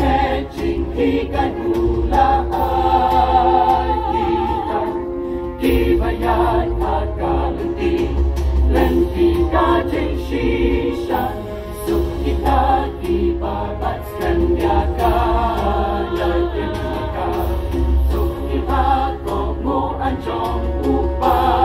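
Mixed choir of women's and men's voices singing in parts, with held notes and a wavering vibrato in the upper voices.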